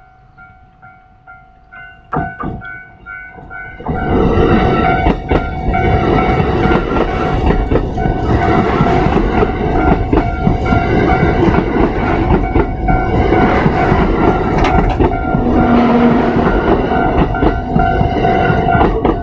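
A Japanese level-crossing warning bell rings in a steady repeating beat. About four seconds in, a Kintetsu Series 21 electric commuter train arrives and runs past loudly, with its wheels clicking over the rail joints, while the bell keeps ringing.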